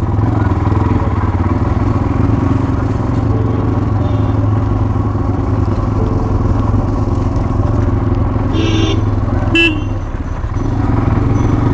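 Motorcycle engine running steadily at low road speed, with two short horn beeps about three-quarters of the way through.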